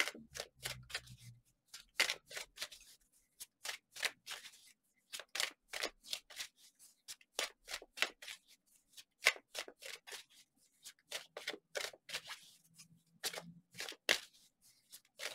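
Tarot cards being shuffled by hand: a steady, irregular run of short card flicks and taps, a few each second.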